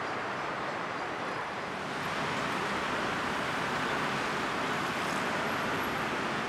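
Steady road traffic noise, a continuous rush of passing vehicles that swells a little in the middle.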